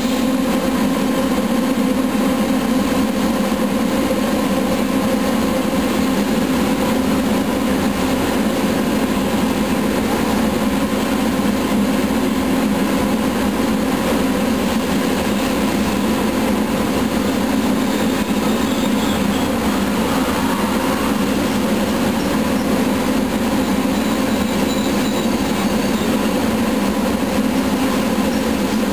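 Trenitalia electric high-speed train rolling slowly along a station platform, a steady loud hum.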